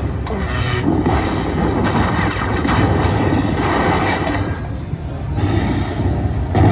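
Lightning Link slot machine playing its bonus-feature music and sound effects, loud and continuous with a heavy bass.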